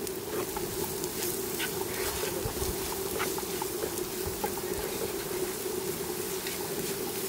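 Dried mint and fried onions sizzling in oil in a steel frying pan, with the light clicks and scrapes of a wooden spatula stirring them. A steady hum runs underneath.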